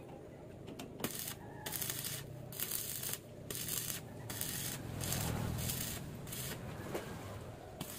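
Stick (arc) welding on a steel tube frame: the arc crackles and sizzles, starting about a second in and stopping and starting again several times in stretches of half a second to a second.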